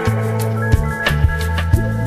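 Background music with a steady beat: drum hits about twice a second over a held bass line.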